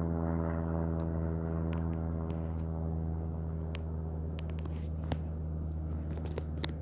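Plane flying overhead: a steady low engine drone with its higher tones slowly fading as it moves away. A few faint clicks in the second half.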